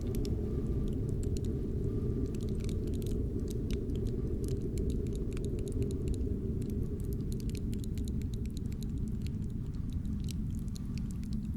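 Cold wind blowing steadily and low, overlaid with a dense scatter of short, sharp crackling clicks: a freezing, frost-crackle sound effect.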